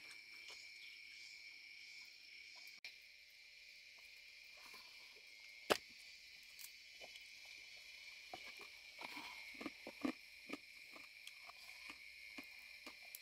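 Steady, high-pitched insect chorus in a constant drone, with scattered small clicks and knocks and one sharp click about six seconds in.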